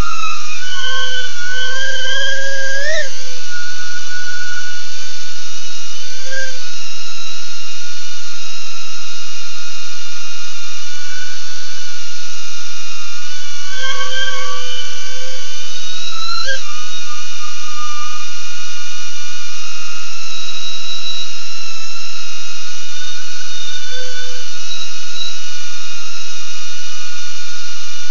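BetaFPV Aquila16 FPV quadcopter's motors and propellers whining steadily in flight. The pitch bends up and down with throttle, with brief sharp rises about three seconds in and again a little past the middle.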